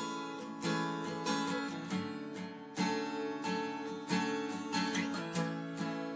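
Background music: a strummed acoustic guitar with a steady rhythm.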